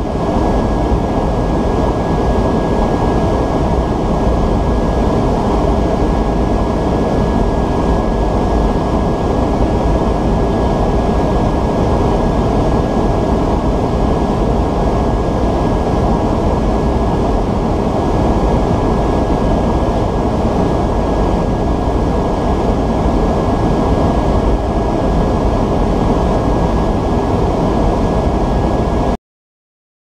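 Steady in-flight drone of airflow and engines heard inside an aerial-refuelling tanker's boom operator station, with a thin steady whine over it; it cuts off abruptly near the end.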